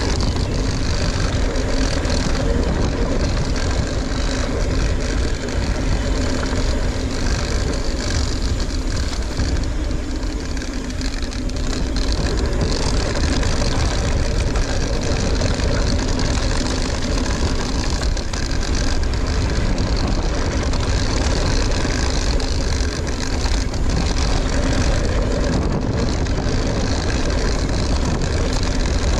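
Mountain bike descending a trail: a steady rush of wind and trail noise from the tyres and bike, with a faint steady drone underneath, easing briefly near the middle.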